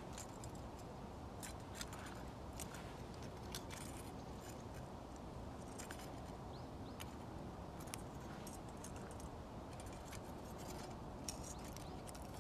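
Aluminium foil crinkling as a thin strip is rolled and twisted between the fingers: faint, irregular small crackles over a steady low background noise.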